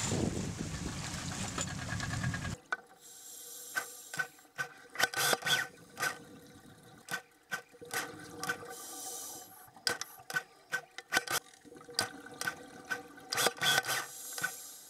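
Underwater sound of a scuba diver: irregular clicks and knocks with short hissing bursts of exhaled bubbles. It follows about two and a half seconds of steady rushing noise that stops abruptly.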